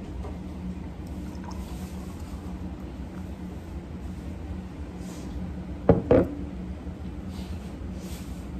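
Beer poured from a glass bottle of Kirin Lager into a glass, foaming up as it fills. Two sharp knocks about six seconds in, over a steady low hum.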